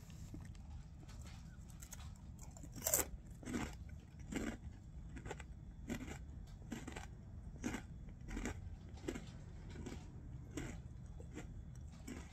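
Chewing a mouthful of Buffalo Cheetos corn snacks: a regular series of crunches, about one every three-quarters of a second, starting a few seconds in.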